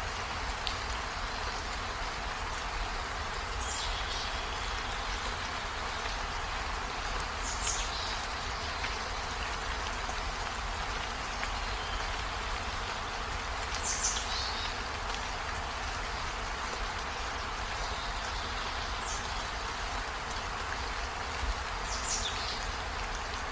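Steady rain falling, an even hiss with a low rumble beneath it. Short, high chirps cut through it every few seconds.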